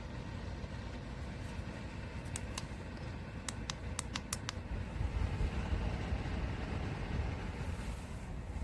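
A quick run of about seven small, sharp plastic clicks between two and four and a half seconds in, over a steady low rushing noise.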